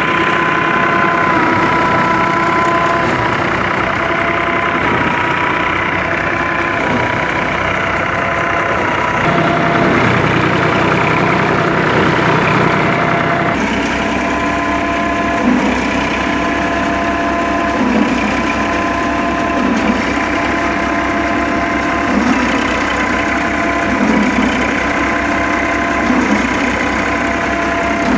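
Massey Ferguson 5245 tractor's three-cylinder diesel running steadily under load, driving a Dasmesh paddy thresher whose spinning drum adds a steady whine over the engine. In the second half, brief louder surges come every two seconds or so.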